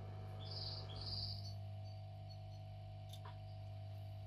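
Faint steady electrical hum, with two short high chirps about half a second and a second in.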